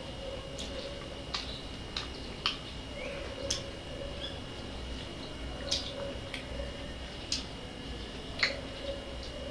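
Close-up eating sounds: about a dozen sharp, irregular mouth clicks and smacks of chewing, over a faint steady high tone.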